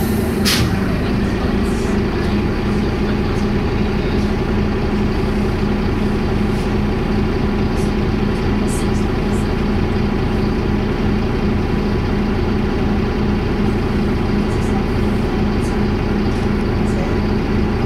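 Optare Tempo single-deck bus running at a steady speed, heard from inside the passenger saloon: a constant engine and drivetrain drone with a steady low hum that does not change in pitch. A brief click sounds just after the start.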